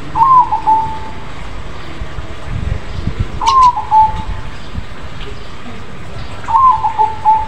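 Crossbred zebra dove (perkutut krosing) cooing: three loud phrases about three seconds apart, each a quick run of short notes ending on a held note.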